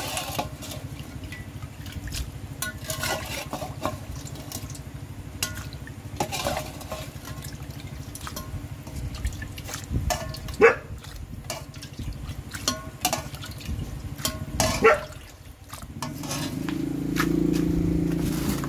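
Metal ladle scooping soup from a pot and pouring it into a bowl: liquid splashing and sharp clinks of metal against the pot. About 16 seconds in, a louder low drone comes in.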